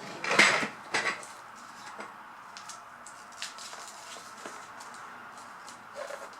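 Small hard plastic toy parts clattering and clicking as they are handled. A loud rattle of several knocks comes about half a second in and another about a second in, followed by scattered light clicks.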